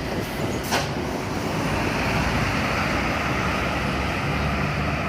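A bus driving past on the road: steady engine and tyre noise, with a short sharp click under a second in.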